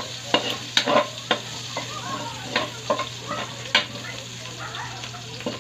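Metal spatula stirring and clinking against a metal wok, with sharp clinks scattered throughout, while onion, ginger and chili sizzle in the leftover fish-frying oil.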